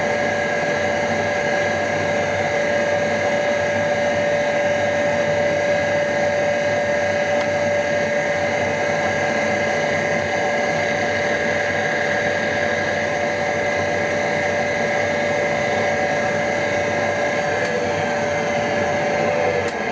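Surface grinder running, its wheel spindle giving a steady whine over a broad grinding-machine noise; in the last couple of seconds the main tone begins to fall in pitch.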